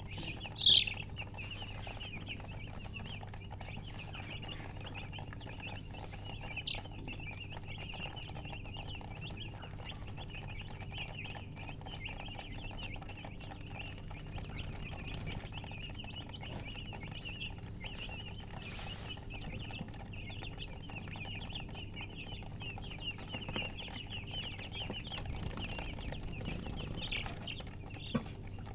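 Newly hatched chicks peeping without pause in a dense stream of short, high, overlapping chirps, with one louder chirp about a second in. A steady low hum runs underneath.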